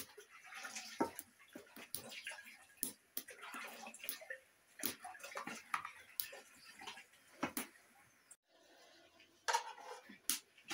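A serving spoon scraping and clinking against metal cooking pots as food is dished out, with many irregular sharp clinks and short scrapes. The sound drops out briefly about eight seconds in.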